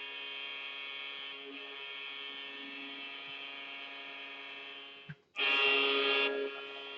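Steady electrical buzz with a fixed pitch and many overtones, like mains hum on an audio line. It drops out briefly about five seconds in, then comes back much louder and brighter for about a second before settling to its earlier level.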